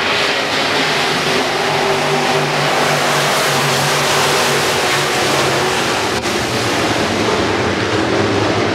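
A pack of dirt-track modified race cars going around the oval, their V8 engines running loud and steady together as they pass.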